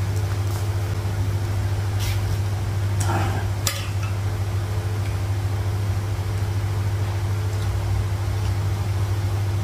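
Steady low hum, with a few light clicks and clinks of plates and food being handled about two and three to four seconds in.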